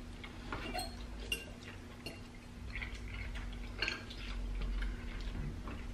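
Metal forks clinking and scraping against glass bowls of black bean noodles, a scattering of light separate clicks, with soft eating sounds as the noodles are chewed.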